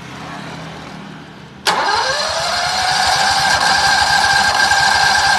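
Electric starter of a Hausmann R12000DP-A 12 kW gasoline generator cranking the engine, with the key held at Start: about a second and a half in, a whine rises quickly and holds steady over a fast, even chugging. The engine does not catch; spark is good but no fuel is reaching the cylinders.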